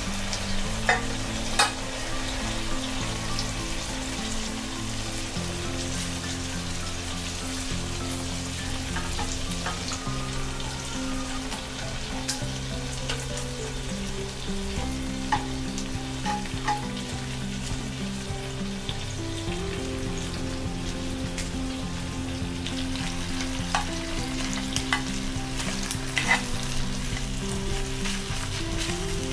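Beef and chicken sizzling as they fry in a non-stick divided hot pot, stirred and turned with tongs. Now and then there is a light click of the tongs against the pot.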